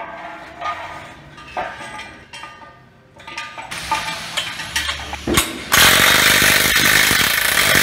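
Clanks and knocks of steel frame parts being handled, then a cordless impact wrench hammering a bolt tight for about two seconds near the end, loud and rattling, cutting off suddenly.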